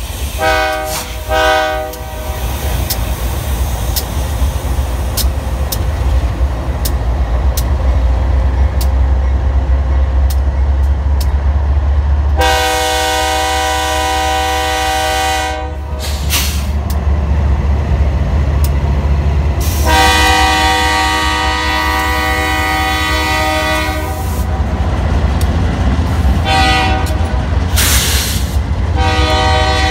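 Locomotive multi-chime air horn: two short toots, then long, long, short, long blasts, the standard warning pattern for a road grade crossing. Under it runs the steady heavy rumble of the train's engines and wheels, with scattered sharp clicks in the first part.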